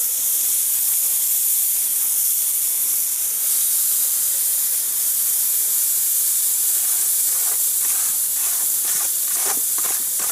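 Bone-in ribeye steaks sizzling loudly and steadily on a hot grill grate, with a few crackling pops in the later seconds.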